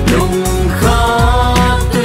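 Music playing loudly, a melody over low notes that slide downward.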